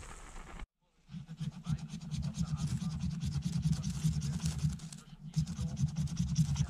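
A knife blade scraping with quick, repeated strokes, a brief pause about five seconds in. The scraping is part of getting a small campfire going.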